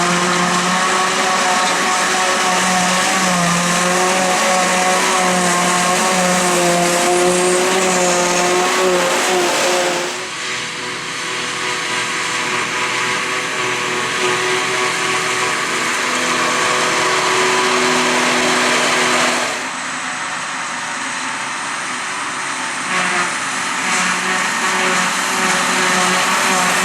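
Forage-harvesting machinery running: a loud, steady mechanical whine with several held tones over a dense rushing noise. The sound changes abruptly twice, about ten seconds in and again just before twenty seconds.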